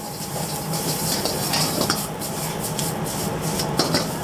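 Vegetable noodles stir-frying in a wok over a high gas flame: a steady sizzle with the metal ladle scraping and tossing them against the wok, over a steady low hum.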